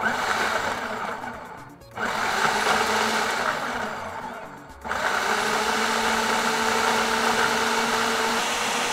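Food processor blending a marinade of onion, peppers, spices and oil, run in three pulses: a short one at the start, a second about two seconds in, and a longer run from about five seconds in.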